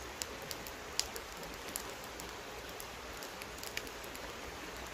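Steady rushing of a stream, with a few faint ticks.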